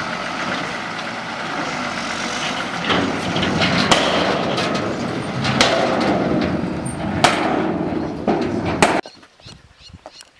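Engine running steadily, with several sharp knocks and clanks over it. The engine sound cuts off suddenly near the end, leaving only faint clicks.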